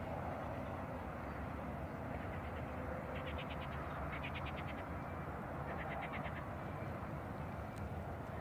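Three short, rapid ticking trills from a small animal, such as a bird or insect, over a steady low rumble of outdoor noise.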